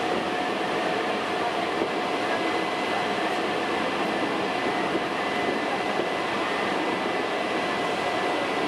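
Hankyu Kyo-train electric train running at a steady speed, heard from inside the car: an even rumble of wheels on rail with a faint steady whine.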